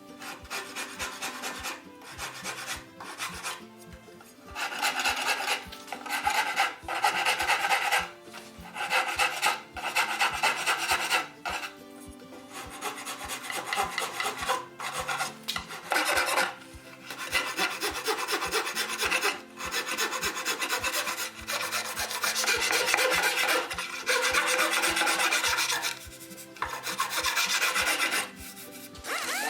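A wood rasp filing wood in repeated strokes of about a second each, with short pauses between them.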